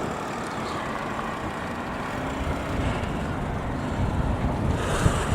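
Road traffic going past, steady, with a gusty low rumble of wind on the microphone growing toward the end.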